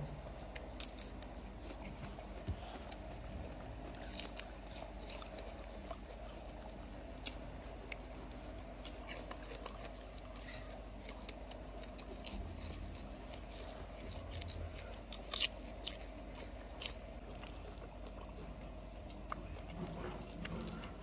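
Japanese macaques biting and chewing fresh leafy green stalks: irregular crisp crunches and snaps over a steady background hum.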